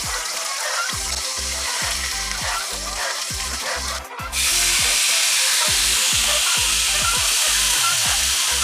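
Chopped marinated chicken breast sizzling as it fries in hot oil, the sizzle turning louder about four seconds in.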